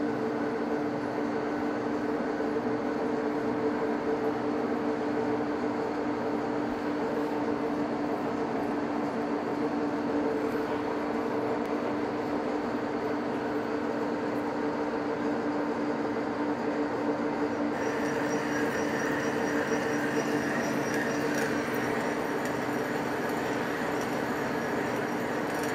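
Monarch engine lathe running steadily at a slow spindle speed set for threading, its headstock gearing giving a steady whine. About two-thirds of the way through, a brighter hiss with faint ticking joins in.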